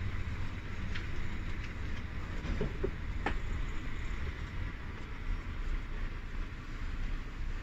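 Intercity coach heard from inside the cabin while driving on a wet road: a steady low rumble of engine and tyres with an even hiss. A couple of short sharp clicks or rattles come about one and three seconds in.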